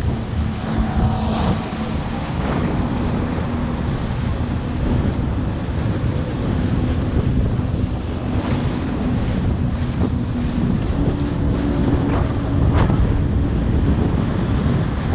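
Jet ski engine running under way, its steady drone stepping up in pitch about eleven seconds in, with heavy wind buffeting on the microphone and a few sharp water splashes near the end.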